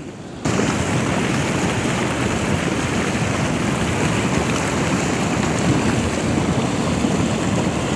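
Lahar (volcanic mudflow from Semeru) rushing down a river channel: a steady, loud, even rush of churning water, mud and debris that starts abruptly about half a second in.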